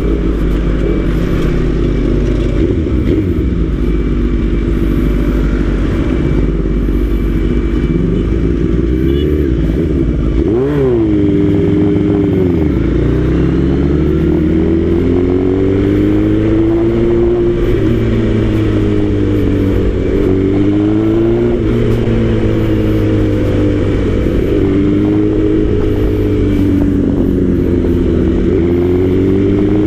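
Suzuki GSX-R1000 inline-four engine running while riding, over a low steady rush. About ten seconds in the engine note drops and climbs again, and from then on it rises and falls every few seconds with the throttle.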